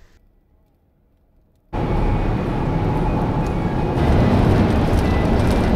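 Near silence, then after about two seconds a steady road and wind noise sets in suddenly: a pickup truck driving at highway speed, heard from inside the cab.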